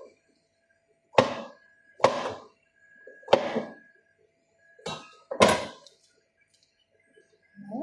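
Five loud thuds or knocks at uneven spacing, roughly a second apart, the last two close together, with a short ring after each.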